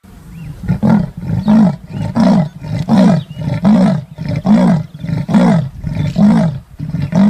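Leopard's sawing call: a steady run of about ten rough grunts, a little more than one a second.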